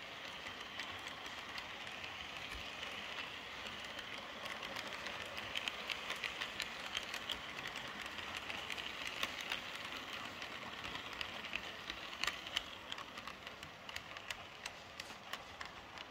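H0 model train coaches rolling past on Märklin three-rail track: a steady rolling hiss of small metal wheels on the rails with irregular clicks over the rail joints, getting quieter near the end as the last coach passes.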